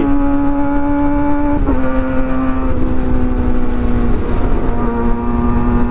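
Sport motorcycle engine heard from on board while cruising, a steady high engine tone over wind rumble on the microphone. It shifts up a gear about a second and a half in, and the tone then settles a little lower twice as the bike eases off.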